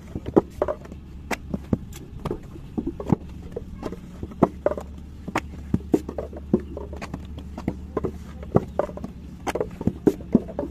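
Hand brick moulding: a wooden stick scraped across a filled brick mould and knocked against it, giving irregular sharp knocks and scrapes about two or three times a second over a low steady hum.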